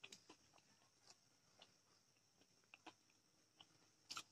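Near silence with faint, scattered small clicks as fingers mix rice on a steel plate; the loudest few come close together near the end.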